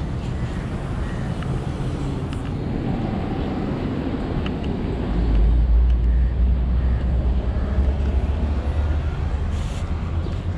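Outdoor street ambience: a continuous low rumble that grows louder about halfway through.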